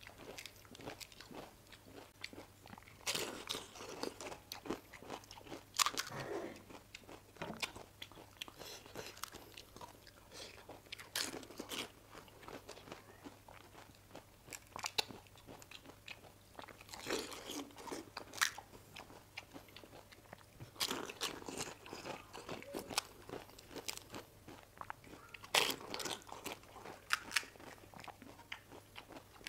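Crisp, hollow fried panipuri shells crunching as they are bitten and chewed close to the microphone, in about six loud mouthfuls spread every few seconds. Between the mouthfuls come fainter small cracks as shells are poked open with the fingers.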